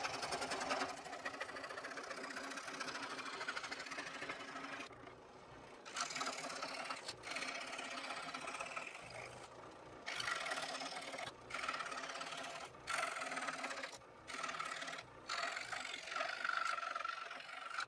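Scroll saw running and cutting, a steady fast buzz of the reciprocating blade, with several brief breaks in the second half.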